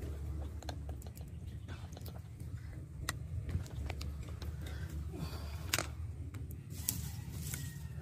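Leaves and twigs rustling and snapping in a mango tree's branches: scattered sharp clicks, the loudest about three, six and seven seconds in, over a low steady rumble.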